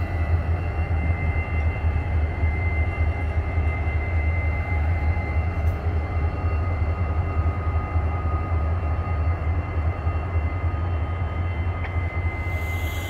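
Norfolk Southern diesel locomotives rolling slowly past close by: a steady low engine drone with thin steady high tones above it.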